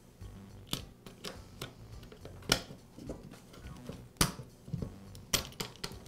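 Sharp clicks and light taps of a chainsaw's metal brake band and brake connector being handled and seated into the plastic brake housing, about seven separate clicks, the loudest two about two and a half and four seconds in.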